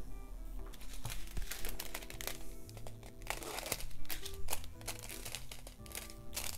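Small plastic zip-lock bags of diamond-painting drills crinkling as they are handled, with irregular clicks and rustles, over steady background music.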